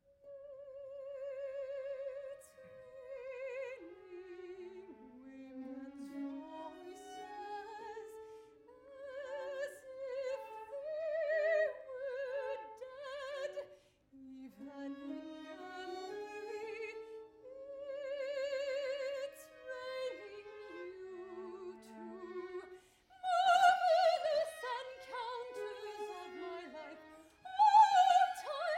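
Operatic soprano singing a slow, wide-ranging contemporary classical line with vibrato, accompanied by a small string orchestra. There is a short break about halfway through, and a louder, fuller passage near the end.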